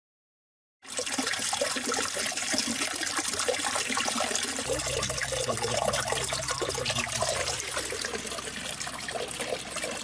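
Natural mineral water running from a stone village fountain's spout and splashing into the basin and into a plastic bottle held under it. It starts abruptly about a second in and then pours steadily, with a low hum added for a few seconds around the middle.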